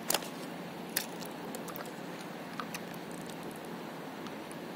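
Small water lapping steadily around the paddleboard, with a few sharp clicks, the loudest just at the start and another about a second in.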